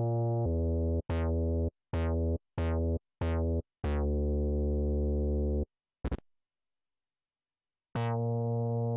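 Mini-G 3 software synthesizer playing a bass preset. A held low note gives way to a run of short, separated notes, each opening with a quick bright sweep that falls away, then a longer held note. After a brief click and a short silence, the next bass preset's note starts near the end.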